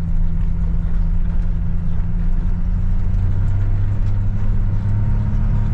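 An engine idling steadily, its low tone shifting slightly about three seconds in.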